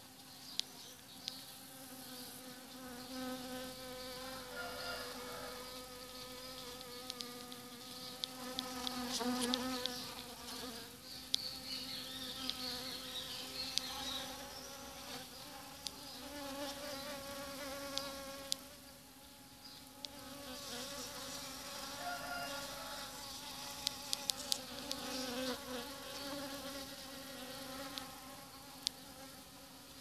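Honeybees buzzing close up while foraging in a flower: a hum that swells as bees fly near and fades as they move off, several times over. A few sharp clicks are scattered through it.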